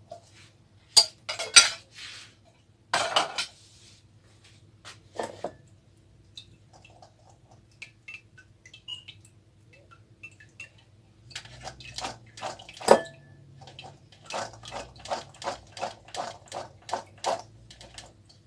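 Kitchenware clattering as a can of chickpeas is handled and drained: a few sharp knocks in the first seconds, then a run of quick clinks and taps, about three a second, through the second half.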